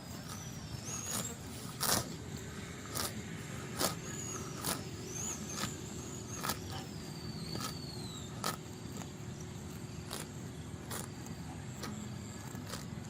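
Cow eating: short crunches of chewing or tearing at feed, about one a second, over a steady low background rumble.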